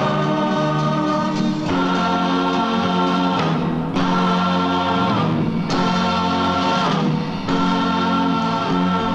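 Film title music: a choir singing slow, sustained chords that shift every second or two.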